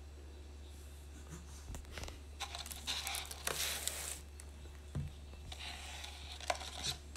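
Cardboard fries carton rustling and crinkling as a small child grabs it and drags it across a table, in two bursts, about two and a half seconds in and again near the end, over a low steady hum.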